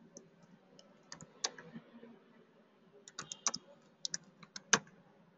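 Computer keyboard typing: irregular key clicks in short runs, with one louder key strike near the end.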